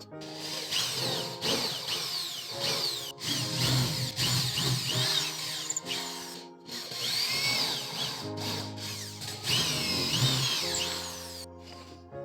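Handheld power tool running and working wood, its motor pitch sweeping up and down as the load changes, with a few brief pauses. Background music plays underneath.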